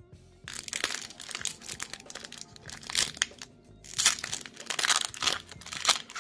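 Foil booster-pack wrapper crinkling as it is handled and torn open, starting about half a second in, with louder crackles around the middle and again a second later.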